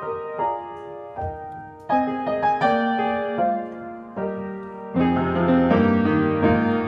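Upright piano playing a hymn, a melody over broken chords with each note ringing out; about five seconds in, the playing grows fuller, with deeper bass notes.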